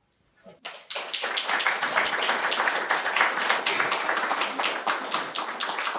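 Audience applauding, breaking out suddenly just under a second in and keeping up a dense, steady clapping.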